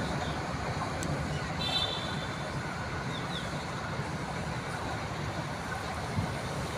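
Steady rumble of road traffic, with a short high tone about a second and a half in.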